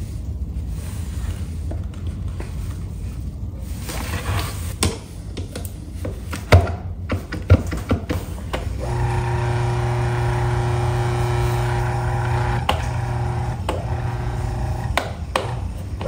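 Sharp clicks and knocks of pliers on a table fan's motor shaft. Then, from about nine seconds in, the Arno VR40 fan's electric motor hums steadily, dropping out briefly a few times.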